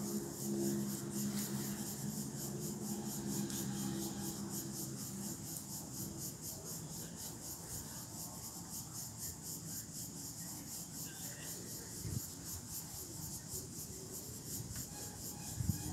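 Insects chirring outdoors in a fast, even, high-pitched pulse, with a low steady hum under it for the first five seconds or so.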